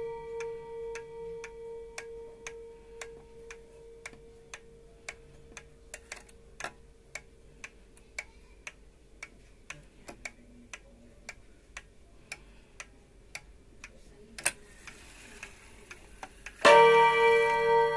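Seiko 30-day wall clock movement ticking about twice a second, while the gong tone from a previous strike fades away at the start. Near the end, after a single sharper click, the hammer strikes the gong once, a loud ringing tone with overtones.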